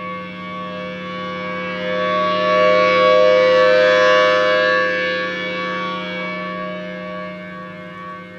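Federal Signal Thunderbolt 1000T outdoor warning siren sounding a steady tone during a test. It swells to its loudest about three to five seconds in as the rotating siren head turns toward the listener, then slowly fades as it turns away.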